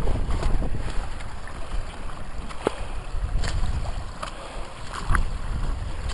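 Wind rumbling on the microphone, with scattered snaps and crackles of dry sticks and reeds underfoot as people walk through brush.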